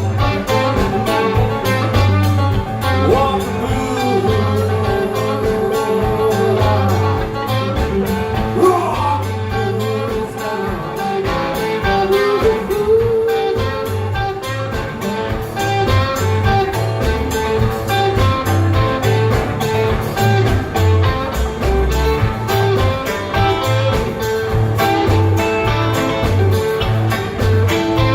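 A band playing a blues song live: guitar over a steady, pulsing bass line and drums, with bending guitar notes about eight and twelve seconds in.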